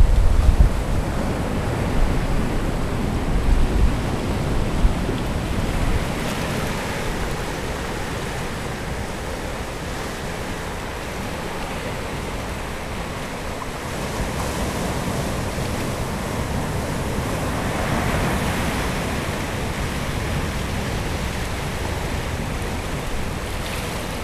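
Ocean surf washing and breaking over shoreline rocks, a continuous wash that surges about a quarter of the way in and again about three-quarters through. A heavy low rumble of wind on the microphone dominates the first six seconds or so.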